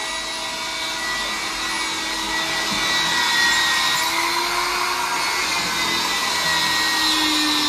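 Steady whir of an electric motor moving air, like a blower or vacuum, starting suddenly and running without a pause.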